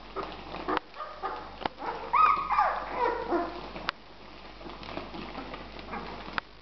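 Twelve-day-old puppies squealing and whimpering in short, high cries that arch up and fall in pitch, the loudest about two seconds in, fading to weaker whines after the middle: hungry puppies crying for milk. A few sharp clicks fall between the cries.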